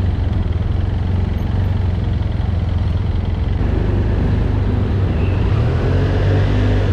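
Motorcycle engine running at low speed with a steady low hum as the bike is ridden slowly onto a ferry vehicle deck.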